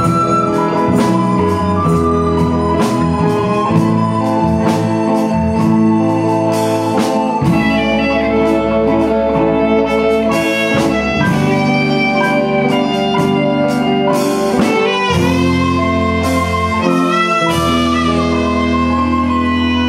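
Soprano recorder playing a slow melody over an ensemble of electronic keyboards with a drum beat. Partway through, the recorder rests while the keyboards carry an interlude, and it comes back in near the end.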